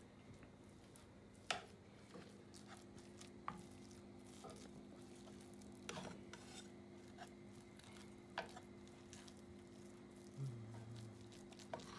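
Sausage cooking in a frying pan: a few scattered clinks of a utensil against the pan over a low steady hum.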